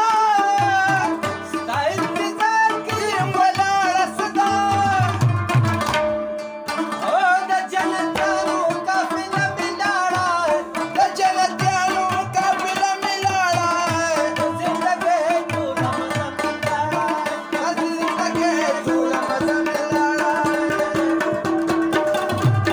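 Live Pashto folk music: an Afghan rubab playing a wavering melody over a tabla beat, with a steady held tone underneath.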